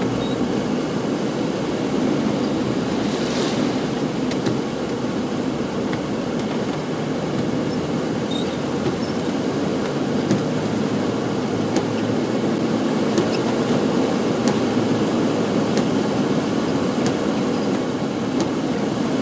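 Rushing floodwater running fast and turbulent: a loud, steady rushing noise with a few faint ticks.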